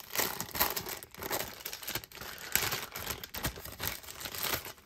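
A bag of stickers crinkling and rustling in irregular bursts as it is opened and handled by hand.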